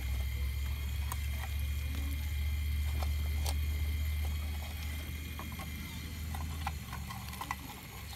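Radio-controlled scale Cat 349 excavator digging shale: a low steady hum from the model that stops near the end, with scattered small clicks and knocks of shale pieces against the bucket.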